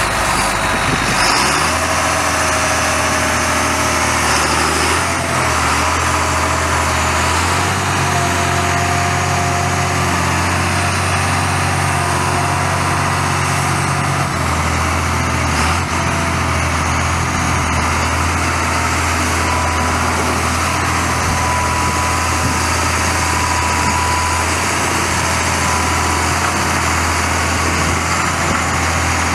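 John Deere 8300 tractor's 7.6-litre six-cylinder diesel engine running steadily while the tractor is driven, its low tone shifting a few times.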